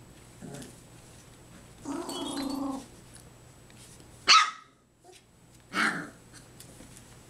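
Three-and-a-half-week-old puppies calling: a short low grunt, then a held, steady call about a second long. About four seconds in comes a sharp high yip, the loudest sound, and a second bark follows about a second and a half later.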